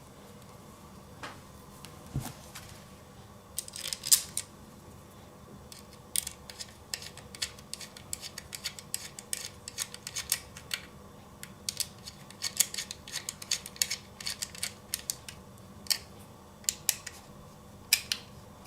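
Small screws being driven into a laptop hard drive caddy tray with a small screwdriver: an irregular run of sharp, light clicks and ticks of metal on metal, in clusters through most of the stretch.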